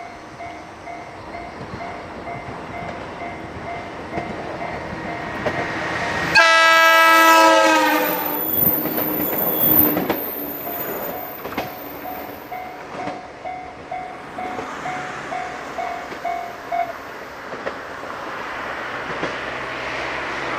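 Japanese level-crossing alarm ringing in a rapid repeating two-pitch ding. About six seconds in, a 103 series electric train sounds its horn for about a second and a half, then passes with wheels clattering over the rail joints. The crossing alarm rings on and stops about seventeen seconds in.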